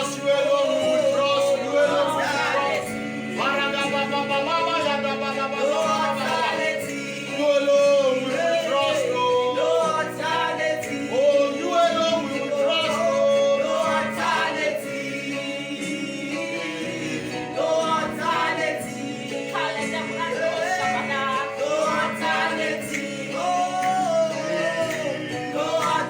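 Gospel singing over instrumental accompaniment, with the voice gliding and holding long notes over steady sustained low tones.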